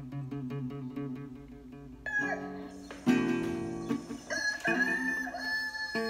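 A classical guitar picks a steady repeating figure, then about two seconds in, sampled rooster crows come in over it and take over, with a louder entry about a second later.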